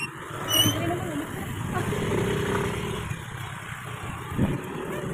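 A motor vehicle passing on the road, a steady engine hum with road noise, with a brief voice about half a second in.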